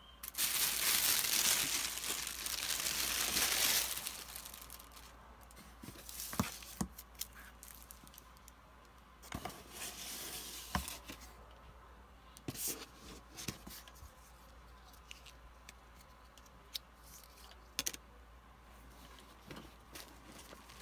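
Packaging in a sneaker shoebox crinkling as it is handled, a loud continuous crinkle for about the first four seconds. After that come lighter rustles with scattered sharp taps and clicks of hands on the cardboard box and the shoes.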